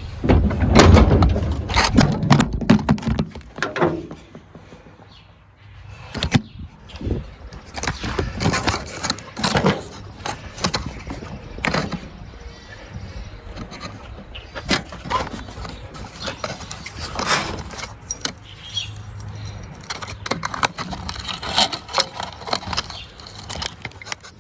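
Metal clanks, clicks and scrapes of a steel floor jack and its parts being handled and unpacked. The heaviest knocks and thumps come in the first few seconds, followed by scattered lighter clicks and rattles.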